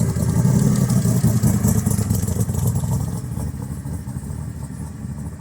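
Backdraft Racing Cobra's 427 small-block V8 running with a low, pulsing exhaust note, loudest in the first couple of seconds and then fading steadily.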